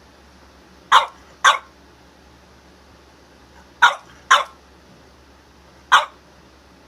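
French Bulldog barking: five short, sharp barks, two quick pairs and then a single one.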